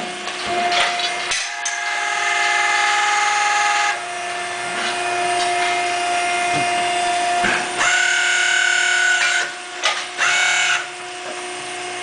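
Hand-held power grinder trimming a cow's hoof, whining in several bursts that spin up and cut, over a steady machine hum.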